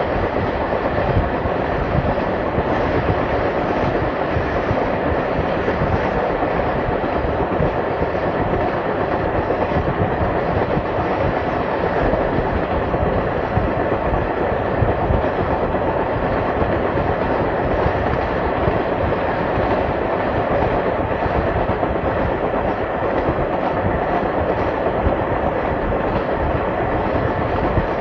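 Steam-hauled passenger train running steadily on the rails: a continuous rumble and clatter of the coach wheels over the track. The top end is dulled, as on an old cassette recording.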